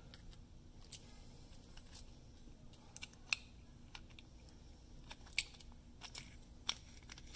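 A handful of faint, scattered clicks and light metallic taps from a hand sewing awl's knurled metal chuck and needle being handled in the fingers.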